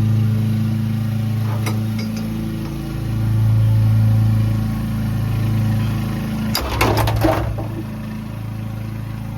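Low steady engine-like hum that slowly swells and fades, with a short burst of clicks and knocks about seven seconds in.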